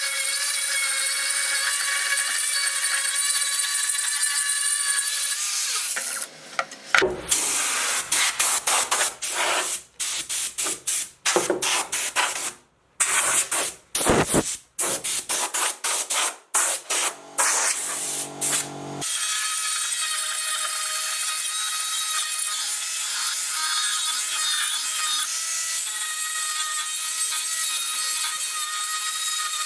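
Power tool with a steady high whine grinding or sanding a bamboo root. From about six seconds in until about nineteen seconds in, the sound comes in short bursts separated by abrupt silent gaps.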